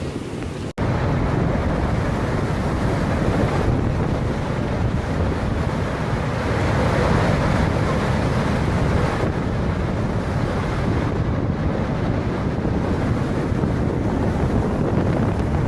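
Strong wind buffeting the microphone over rough, rushing water, a steady loud noise, with a brief dropout about a second in.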